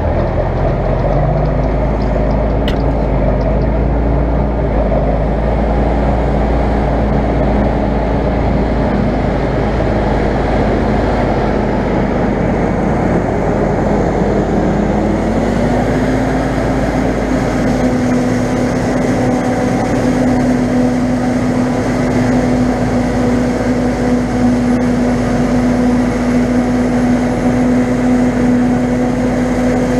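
Heavy farm machinery running steadily during maize silage harvesting: a John Deere 7810 tractor's six-cylinder PowerTech diesel pulling a loaded silage trailer, with a forage harvester working alongside. Engine pitch rises a little about halfway through and then holds.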